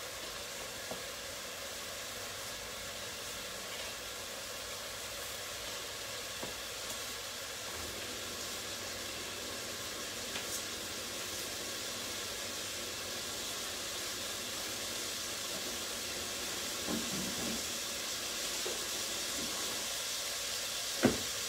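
Cuttlefish sizzling in a pan over a high flame as their water boils off: a steady hiss that grows slightly louder, with a couple of knocks near the end.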